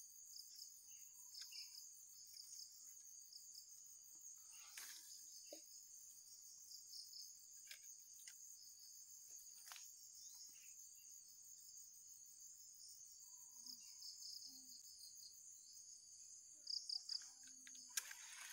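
Insects chirping in a steady high-pitched trill with pulsing chirps, fairly faint. A few sharp clicks near the end.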